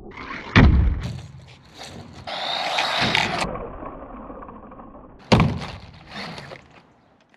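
Electric RC car's motor whining at full throttle, with two hard thuds of the car landing after jumps, about half a second in and again about five seconds in. The sound cuts off abruptly in places.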